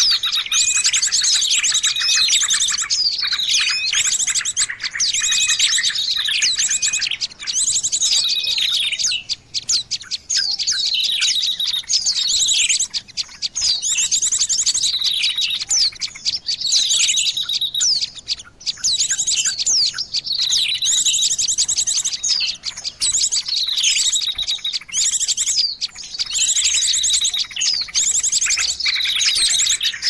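Bird-lure recording of small songbirds calling: high chirps, falling whistles and fast buzzy trills, in bursts repeating about every five seconds with short pauses between.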